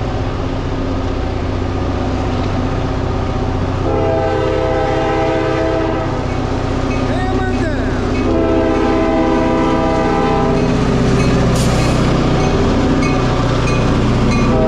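Norfolk Southern EMD diesel locomotive approaching and passing at full throttle, its engine a steady deep rumble that grows louder as it comes by. Its air horn sounds two long blasts, each a chord of several notes, a couple of seconds apart, and starts a third near the end.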